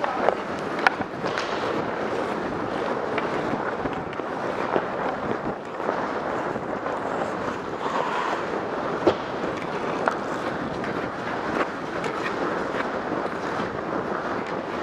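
Steady hiss of skating on ice: skate blades scraping and air rushing over the microphone, with a few sharp clicks scattered through it.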